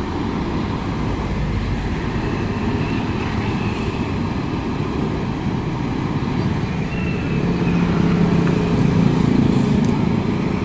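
Steady engine noise from road works and traffic: a Komatsu tracked excavator's diesel engine running, with motor scooters passing close by. The noise grows louder with a low hum from about three-quarters of the way in.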